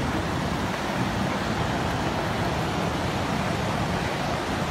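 Steady rushing of a muddy flood torrent, an even noise without breaks.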